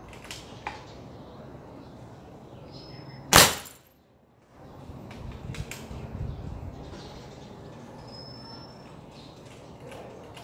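A single shot from a .22 caliber foot-pump air rifle, a sharp crack about three and a half seconds in as the pellet hits the glass-faced wall clock.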